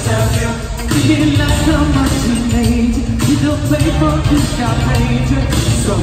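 Live pop music with a lead vocal, played loud through an arena sound system.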